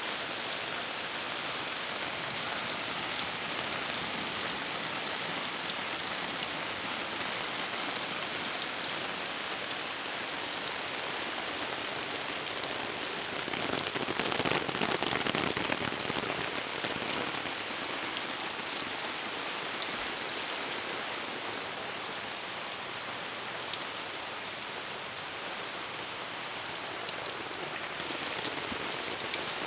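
Water pattering steadily on a DIY silnylon tarp and running off its edge onto wet grass, sounding like steady rain. It gets louder for a few seconds around the middle.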